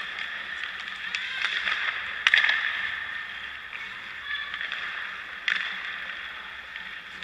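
Hockey skates scraping on rink ice, with a loud sharp clack a little over two seconds in and another about five and a half seconds in.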